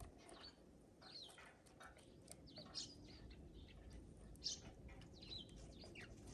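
Small songbirds at a feeder, tits and sparrows, chirping faintly in short, scattered calls.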